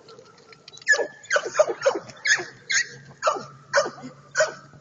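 Dog giving a run of about nine short, high barks or yips, roughly two a second, each dropping in pitch, starting about a second in.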